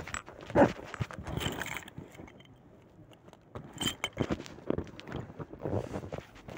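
Irregular high-heeled footsteps with knocks and rustling of clothing against the phone's microphone. They pause for about a second and a half about two seconds in, then start again.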